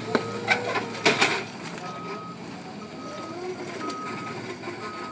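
Forklift backup alarm beeping at one steady pitch, about one half-second beep each second, over the whine of the forklift's drive motor rising and falling. In the first second and a half there are several heavy thumps as a cardboard bale tips off the pallet onto the pavement, the loudest about a second in.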